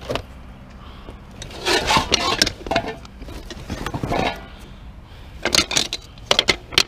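Junk being shifted by hand in a curbside scrap pile: cardboard and other items rustling and scraping, then several sharp knocks in the last second and a half as a large metal pot and the things around it are handled.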